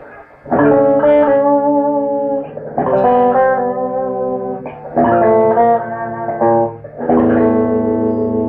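Electric guitar playing chords: four chords, each struck and left to ring for about two seconds, opening a rock-funk song.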